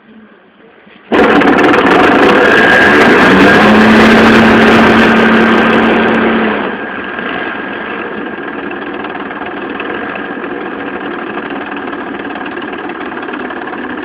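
An engine starts abruptly about a second in and runs loud with a steady hum, then drops to a steadier, quieter running level after about six seconds.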